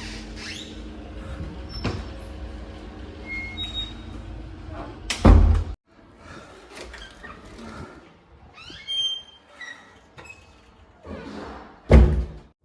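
A door on a door closer swinging shut and landing with a heavy thud, twice: about five seconds in and again near the end. Faint squeaks come between the two.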